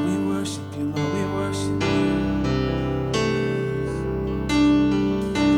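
Instrumental worship band music: sustained piano chords, with a bass guitar coming in about two seconds in and light drum strokes.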